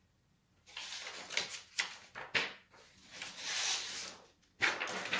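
Oil pastel and fingers rubbing and scraping on drawing paper in a series of strokes, starting about half a second in, with a few sharp clicks as the sticks are handled.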